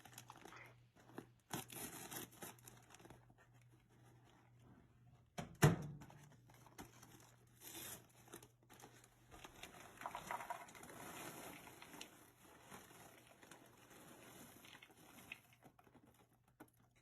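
A popped microwave popcorn bag being torn open and crinkled in short, faint rustling stretches, with one sharp knock about six seconds in.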